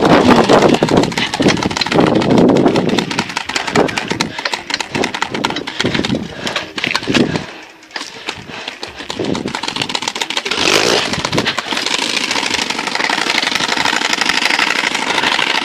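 Motorcycle engine running hard under throttle, its firing a rapid dense rattle. It drops off sharply about eight seconds in, then picks back up and runs steadier.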